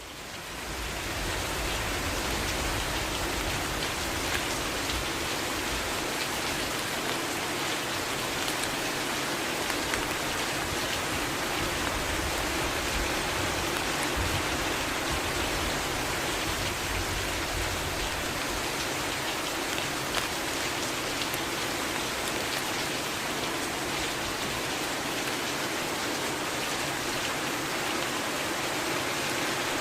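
Steady heavy rain falling, a dense even hiss with many individual drops pattering on a surface, fading in over the first second or two.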